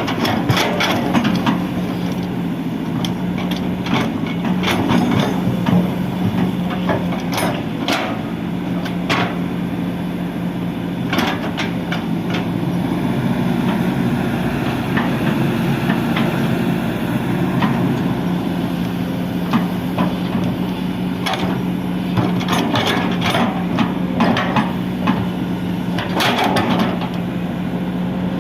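Kobelco SK200 excavator's diesel engine running steadily, with irregular knocks and clanks of the bucket working soil coming in clusters.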